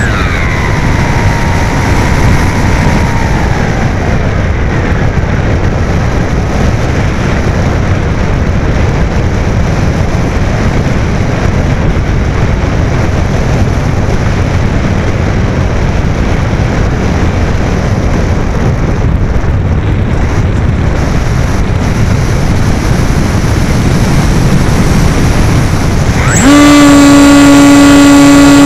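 Electric motor and propeller of an AXN foam RC plane, heard through its onboard camera's microphone. The motor's whine falls away as it is throttled back, leaving a steady rush of air while the plane glides. Near the end the motor spins up sharply to a steady high whine.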